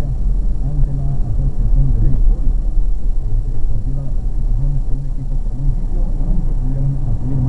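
Steady low rumble of a car's engine and road noise heard inside the cabin while creeping in slow traffic, with a muffled low voice running underneath.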